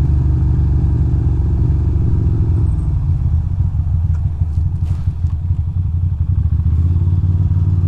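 Ducati Monster 620's air-cooled V-twin engine running while the motorcycle rides slowly along a city street. The engine note turns uneven and pulsing for a few seconds in the middle, then steadies again.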